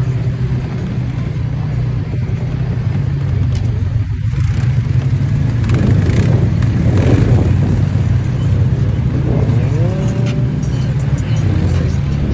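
ATV engine running with a steady low drone, revving up briefly about two-thirds of the way in.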